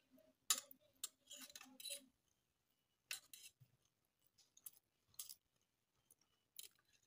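Close-miked eating sounds of fried instant noodles: several short crackly bursts of chewing and slurping, with light fork-on-metal-tray scrapes.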